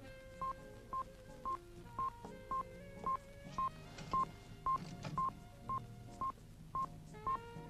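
Suspense film score: a short electronic beep repeating about twice a second over slow, sustained synthesizer-like notes, with a few faint knocks about halfway through.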